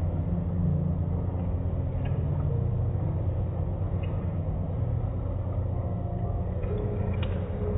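Automatic car wash machinery running: a steady low rumble of motors, spinning cloth brushes and spraying water, with a few faint clicks.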